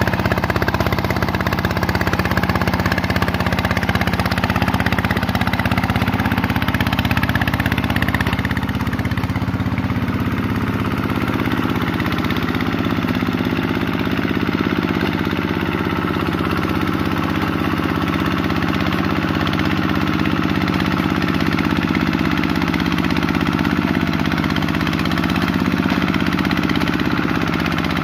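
Kubota RV125-2 single-cylinder diesel engine of a two-wheel hand tractor running steadily under load as the tractor churns through paddy-field mud.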